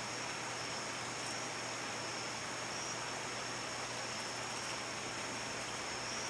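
Steady background hiss with a thin, high-pitched whine and a faint low hum, unchanging throughout: workshop room tone.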